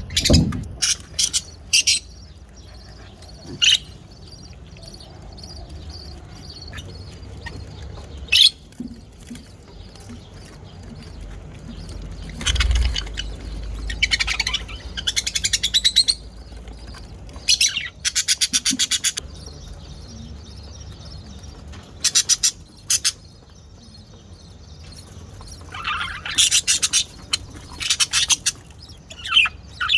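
Budgerigar chirping and chattering in short bouts: sharp high chirps mixed with fast, buzzy, scratchy calls, with quieter gaps between bouts.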